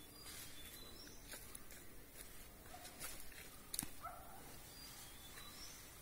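Quiet outdoor ambience with faint, scattered short bird chirps and a few light clicks, the sharpest just before four seconds in.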